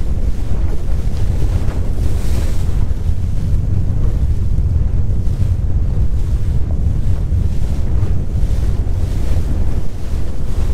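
Strong wind buffeting the microphone on a small open boat: a loud, steady low rumble, with waves and water noise around the hull.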